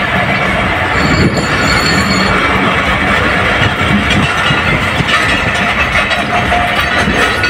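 Passenger express train's coaches rolling past close by as the train pulls out of the station: a steady, loud rumble of steel wheels running on the rails.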